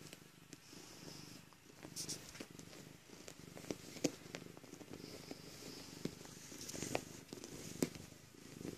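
Domestic cat purring steadily close by, with a few sharp clicks and rustles as it pushes into the pillow and duvet.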